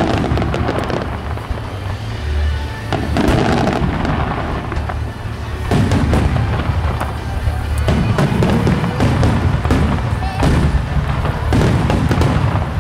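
Wide starmine fireworks: volleys of shells bursting overhead, a new round of low booms every two to three seconds with crackling between, over background music.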